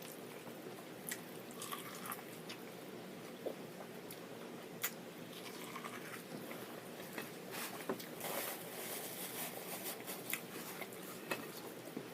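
Faint close-miked eating sounds: soft chewing with scattered wet mouth clicks and smacks, a couple of sharper clicks about five and eight seconds in.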